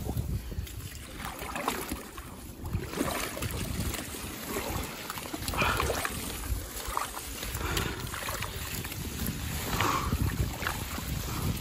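Someone wading through shallow lake water among floating water hyacinth: irregular sloshing and splashing with each step.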